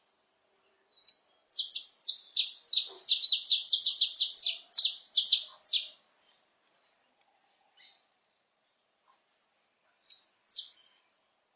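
Male saffron finch singing: a fast run of about twenty sharp, high notes lasting some five seconds, then a pause and two more notes near the end.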